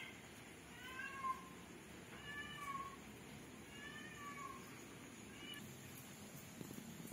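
Kitten meowing: four high meows about a second and a half apart, the last one short.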